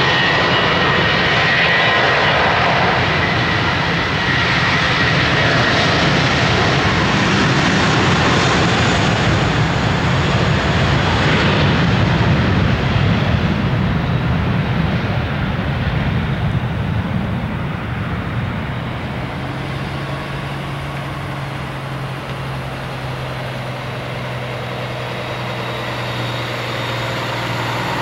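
Airbus A320-200 airliner's twin jet engines at takeoff thrust, a loud steady roar with a high whine at first, as it runs down the runway and climbs out. About two-thirds of the way through the roar grows quieter, leaving a lower steady rumble.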